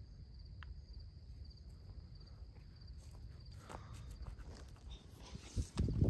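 Footsteps crunching through field stubble, coming closer, with scattered rustles that grow louder and nearer toward the end. Crickets trill steadily and faintly underneath.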